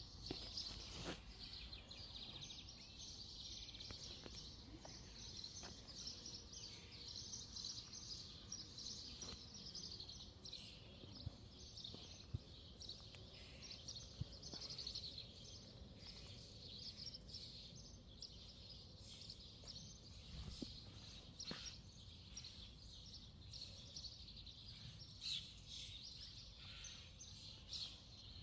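Small songbirds singing and chirping, many quick trills and calls overlapping, over a faint low background rumble.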